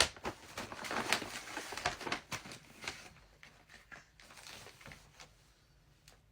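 Packaging crinkling and rustling as a package is handled and opened. It is busy with short crackles for the first few seconds, then dies down to faint scattered handling ticks.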